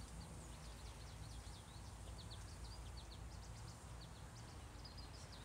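Small birds chirping faintly, many short high chirps scattered throughout, over a low steady outdoor rumble.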